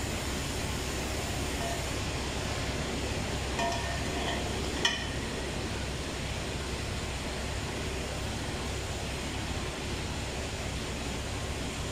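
Steady workshop background noise with two light metallic clinks about four and five seconds in, the second sharper and ringing, as a new cylinder liner is handled and set into a bore of a Perkins 2200 series engine block.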